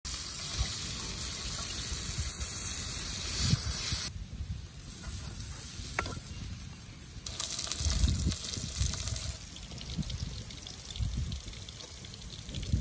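Noodles being cooked in short clips cut together: they are handled in a pot of water and stir-fried in a wok over a wood fire. A steady hiss stops abruptly about four seconds in and comes back from about seven to nine seconds, with low thumps throughout.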